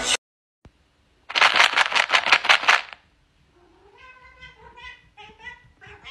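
A loud rattling, noisy burst lasting about a second and a half, then a domestic cat giving a quick string of short meows, several falling in pitch, fainter than the burst.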